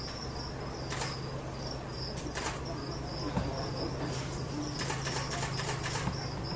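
Ambient chirping: short high chirps repeating about twice a second over a low steady hum, with a few sharp clicks.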